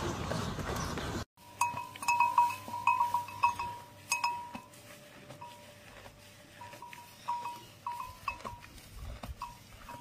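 A packed flock of Muscovy ducks makes a dense, steady noise that cuts off abruptly about a second in. Then a young calf tears and chews fresh grass with sharp clicks, over runs of short high chirps.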